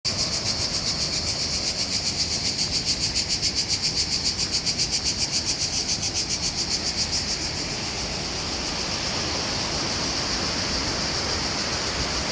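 Insects, such as cicadas, buzzing high-pitched in a rapid pulsing rhythm that settles into a steady buzz about seven seconds in, over a steady rush of falling water.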